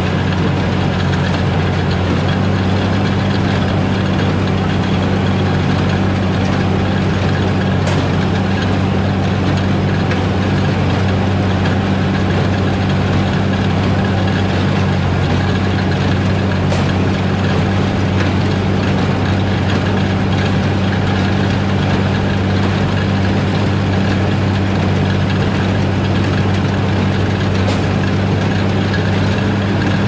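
Case IH Maxxum 5140 tractor's diesel engine running steadily under load, driving a New Holland 570 small square baler.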